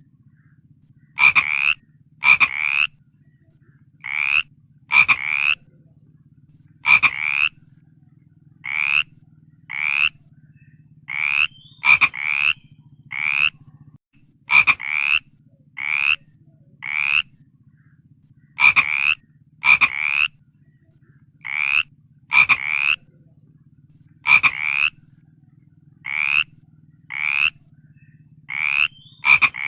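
Frog croaking over and over in short calls, about one a second and sometimes in quick pairs, each call rising slightly in pitch. Some calls start with a sharp click, over a steady low hum.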